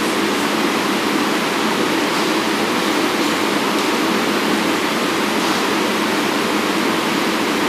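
Steady rushing noise from an R188 subway car standing still, typical of its rooftop air-conditioning units running.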